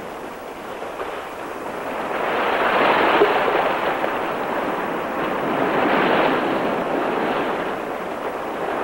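Surf breaking on a rocky shore: a steady wash of noise that swells twice, about three and six seconds in.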